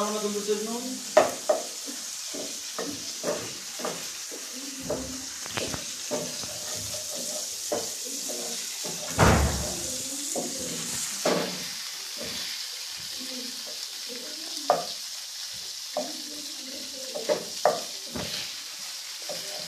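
Chicken pieces sizzling as they fry in a frying pan, with a metal slotted spatula scraping and knocking against the pan as they are stirred and turned. There is a louder knock about nine seconds in.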